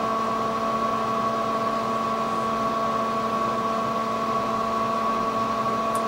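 Steady hum of a ventilation fan in a small bathroom, with a constant whining tone over an even rush of air.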